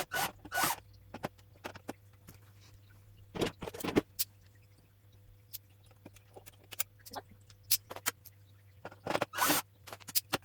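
Screwdriver undoing the screws of an aquarium's LED light hood: scattered clicks and ticks, with a few longer scrapes as the screws turn out.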